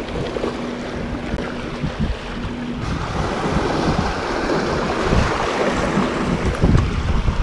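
Small sea waves washing and splashing over shoreline rocks, with wind buffeting the microphone. The wash grows louder about three seconds in, and a faint steady hum is heard before that.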